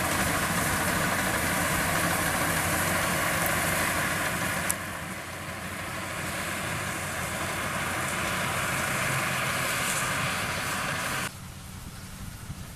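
Combine harvester's diesel engine running steadily. The sound changes abruptly about five seconds in, then drops suddenly to a much quieter, duller hum near the end.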